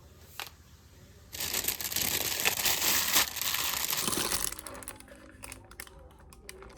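Wrapping being crinkled and rustled by hand: a loud, dense crinkling from about a second in that lasts roughly three seconds, then softer scattered rustles and small clicks.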